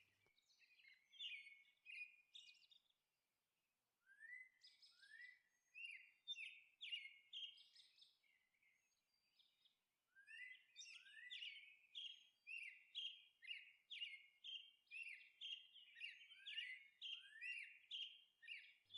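Faint bird chirping: short upward-sweeping chirps, a few scattered at first, then repeating about twice a second through the second half.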